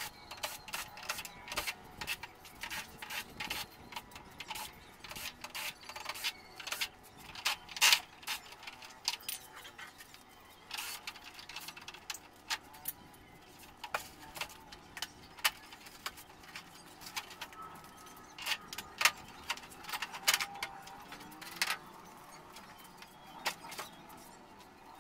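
Scattered sharp clicks and knocks of plastic and loose screws as the rear plastic cover of an LG 55UJ632T LED TV is unscrewed and lifted off.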